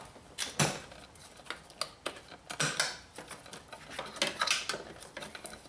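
A screwdriver prying retaining clips off the metal frame on the underside of a Jeep Grand Cherokee seat: irregular clicks, knocks and scrapes, busiest a little after the middle.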